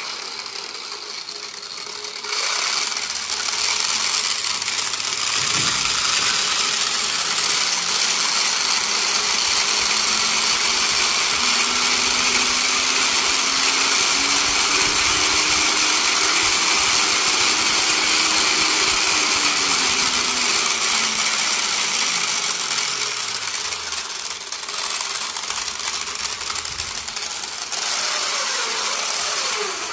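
DC motor driving a homemade gearbox of a plastic gear and angle-grinder gears, spinning the wheels with a steady whine and gear noise. Its pitch climbs over several seconds, holds, then falls as the speed controller is turned up and back down; near the end the motor works against a hand pressed on a wheel.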